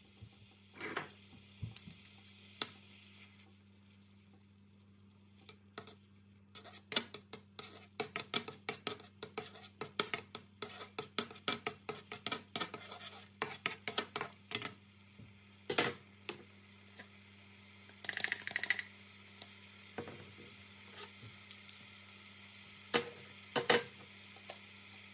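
Slotted metal spatula scraping and knocking against a wok while stirring coconut cream, which sizzles faintly as it is heated until it splits its oil. The clicks come thick and fast through the middle, with a short scraping burst later and two knocks near the end.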